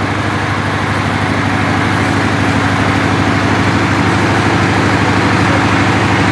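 Bus diesel engine idling steadily with an even, rapid throb.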